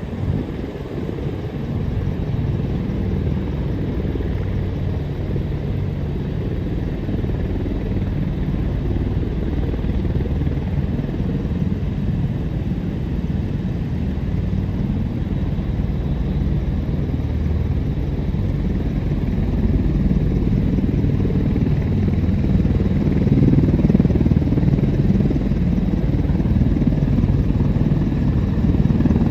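Apache helicopter running on the ground, a steady engine-and-rotor sound that grows louder about two-thirds of the way through.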